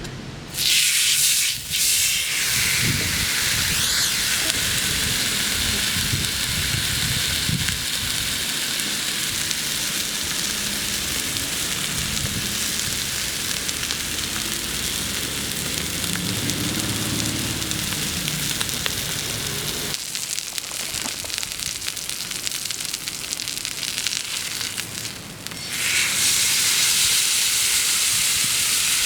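A thick sirloin steak sizzling over a wood campfire: a steady hiss, louder again about 26 seconds in.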